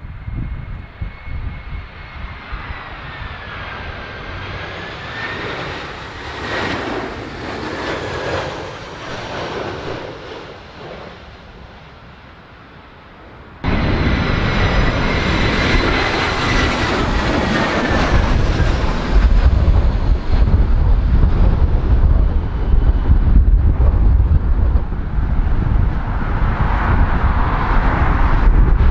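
Jet engines of Airbus A320-family airliners on final approach: a broad roar with a high whine that dips and rises as the aircraft nears. About 13 seconds in, a second approach cuts in louder. From about 18 seconds a heavy low rumble of gusting wind on the microphone builds under the engine sound.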